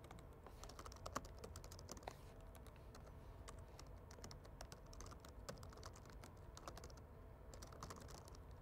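Faint typing on a computer keyboard: a quick, irregular run of keystrokes with a short pause near the end, over a low steady hum.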